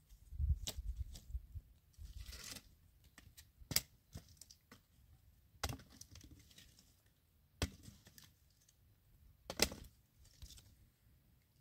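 Dry wooden branches being handled for firewood: about five sharp cracks and knocks, roughly two seconds apart, as sticks are snapped and dropped onto a woodpile, with a brief rustle of twigs between them.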